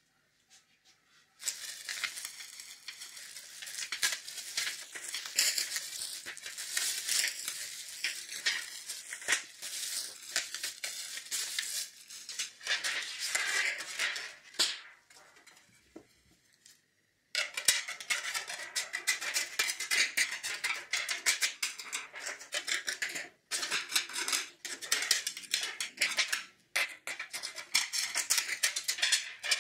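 Thin aluminium foil trays crinkling and clattering as they are pulled apart and handled, then, after a short pause a little past halfway, scissors snipping through a foil tray's ribbed rim with crackling of the foil at each cut.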